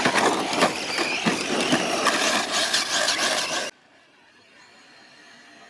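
RC cars racing: a high motor whine over a dense crackle of clicks and hiss, cutting off abruptly about two-thirds of the way through.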